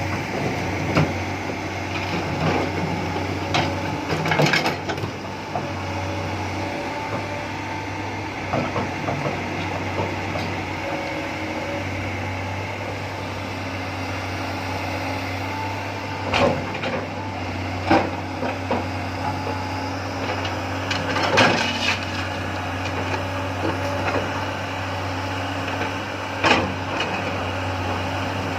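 Komatsu PC300 excavator running steadily with a low hum, with sharp knocks and cracks now and then, about five in all, as the machine works through material.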